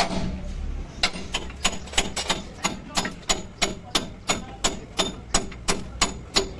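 Steady hammer blows on steel at a truck's rear axle hub, about three strikes a second, each with a short metallic ring.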